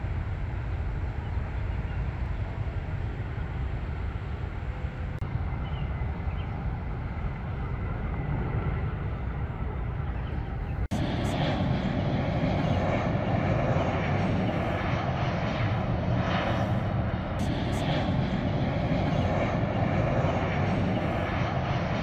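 Steady low rumble, then an abrupt cut about halfway through to the louder, steady engine noise of a twin-engine jet airliner descending on final approach.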